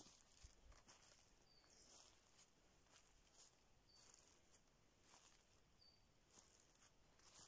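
Faint footsteps crunching through dry leaf litter, with a faint short high chirp every couple of seconds.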